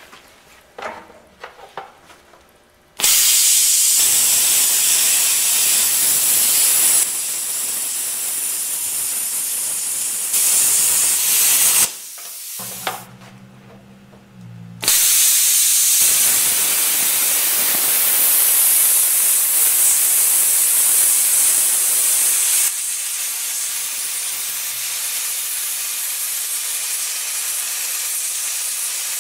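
Hypertherm Powermax 45 plasma cutter, at maximum amperage, cutting through 3/4-inch steel plate with a loud, steady hiss of arc and air. The hiss starts a few seconds in, breaks off for a few seconds about halfway with a low hum left underneath, then resumes for the rest.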